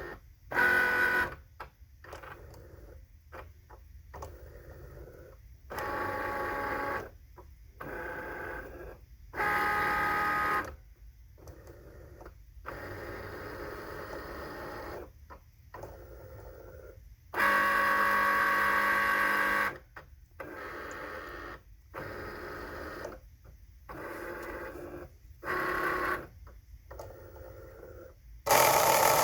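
Cricut Explore Air 2 cutting machine running, its motors whining in a string of short stop-and-go moves of steady pitch with brief pauses between. Near the end a louder, rough grinding noise starts: the grinding the machine is faulting with.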